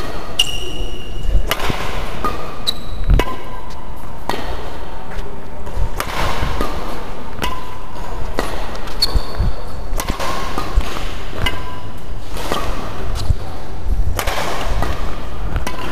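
Badminton play on an indoor court: rackets striking a shuttlecock again and again, irregularly, with short high sneaker squeaks and footfall thumps on the court floor.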